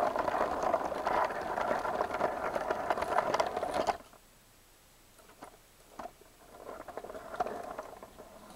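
Lego train running on plastic track: a dense, rattling clatter of small clicks. It cuts off suddenly about four seconds in, a couple of lone clicks follow, then the clatter comes back more faintly and fades.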